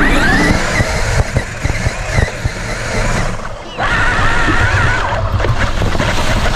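Electric RC truck driven hard over rough ground, heard from a camera riding on it: a wavering, rising motor whine over heavy rumble and rattle from the terrain. It eases off briefly about three and a half seconds in, then picks up again.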